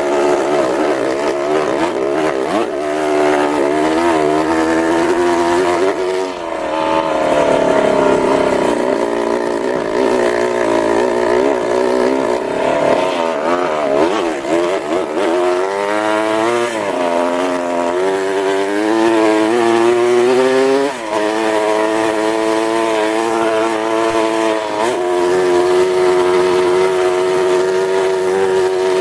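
Dirt bike engine heard from on board while riding, revving up and down over and over as the throttle opens and closes, then holding a steadier pitch near the end.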